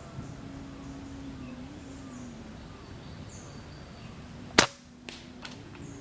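A single air-rifle shot fires a slug at a dove about four and a half seconds in: one sharp crack, followed by a few fainter clicks.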